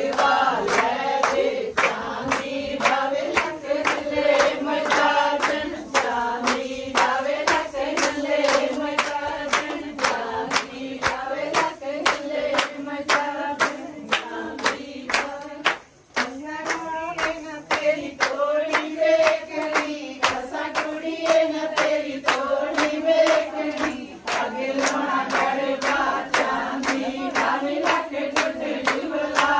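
A group of women singing Punjabi boliyan together over steady rhythmic hand-clapping, as in gidha. The singing and clapping break off briefly about halfway, then start again.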